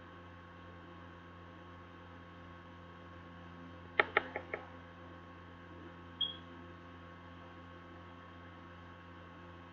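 Steady electrical hum. About four seconds in there is a quick run of four sharp clicks, fading one after another, and about two seconds later one short high beep.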